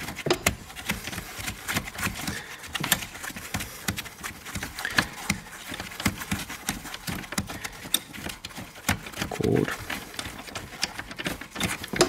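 A 16 mm wrench works a seat-belt anchor bolt loose at a car's front seat rail, giving irregular metallic clicks and taps of wrench on bolt. A short murmur of a voice comes about three quarters of the way through.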